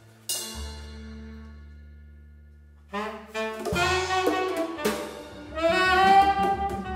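Jazz quartet playing live. A low double bass note fades, with a drum-kit stroke near its start. About three seconds in, tenor saxophone and trumpet come in with held notes and grow louder toward the end over the bass and drums.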